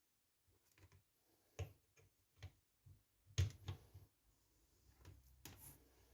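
Faint, scattered clicks and light knocks of small objects being handled, about half a dozen spread over a few seconds, the loudest a little past the middle.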